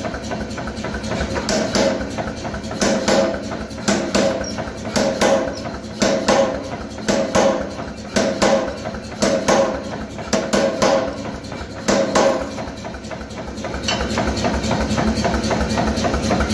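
Power hammer striking hot steel in a swage to forge an acorn shape: sharp blows, often in pairs, about once a second, over the machine's steady running. The blows stop about twelve seconds in, and the hammer keeps running.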